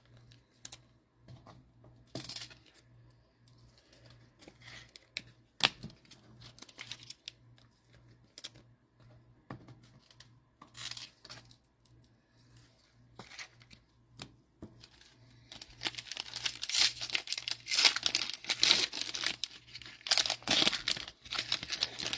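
Foil wrapper of a Panini Mosaic football card pack being crinkled and torn open, a dense crackling that fills the last six seconds or so. Before that come scattered light rustles and taps of handling packs and cards.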